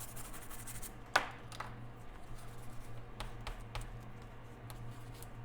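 A few light clicks and taps of small tools being handled on a repair bench, the sharpest about a second in, over a steady low hum.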